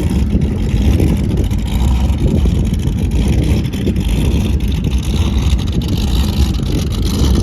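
Motorboat engine running steadily with a loud low rumble, described as noisy as hell.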